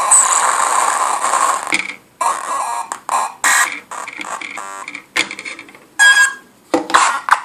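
Grassi touch organ, a Meng Qi board of the Ciat-Lonbarde design, sounding through its two small onboard speakers as fingers press its touch pads. It gives a dense, noisy electronic buzz for the first couple of seconds. Then come short stop-start bursts of buzzing and rapidly pulsing tones as the pads are tapped.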